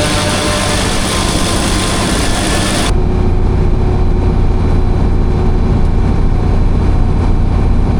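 Heavy farm machinery engines running steadily. About three seconds in the sound cuts off abruptly and is replaced by a deeper, steady engine rumble with much less high-pitched noise.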